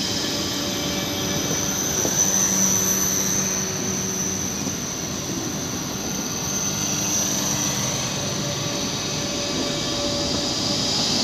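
Red DB electric multiple unit rolling past along the platform: a steady rumble of wheels on rail with an even whine from its electric drive.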